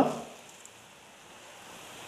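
Faint steady hiss of stir-fried chicken and vegetables cooking gently in a frying pan.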